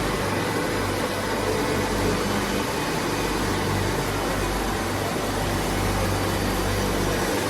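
Steady hum and whir of a Tornos-Bechler Deco 2000/20 CNC lathe under power, with a low electrical hum running under an even hiss.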